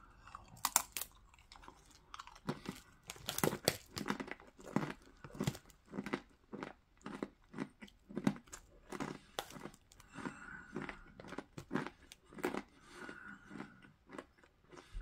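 A person chewing a hard salted pretzel: a run of crisp, irregular crunches, roughly two a second.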